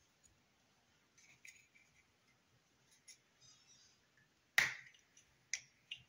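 Small rubber model-car tyre being worked by hand onto its plastic wheel rim: faint rubbing and light ticks, then one sharp click about four and a half seconds in and two smaller clicks just before the end.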